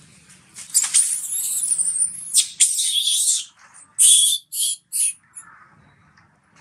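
Young long-tailed macaque screaming: a long run of high-pitched squeals lasting about three seconds, then three short cries about four to five seconds in.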